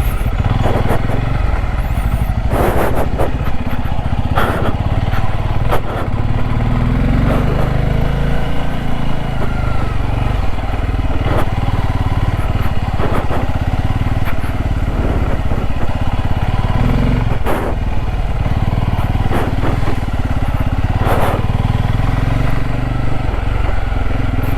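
Motorcycle engine running steadily while riding along a rough road, with many short knocks and buffets over the engine drone.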